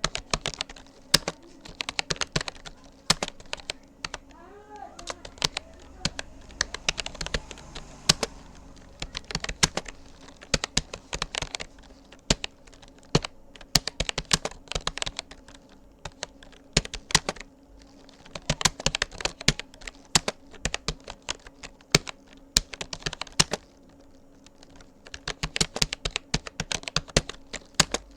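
Typing on a Rapoo computer keyboard: fast, irregular key clicks in runs, broken by short pauses.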